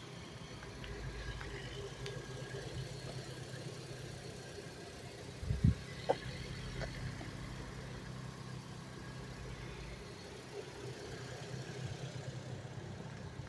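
Honda Civic Si (FG2) coupe's 2.0-litre four-cylinder engine running steadily at low revs, with a short thump followed by a click a little before halfway through.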